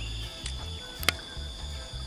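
Background music with a stepping bass line, over a steady high insect drone. A single sharp click sounds about a second in.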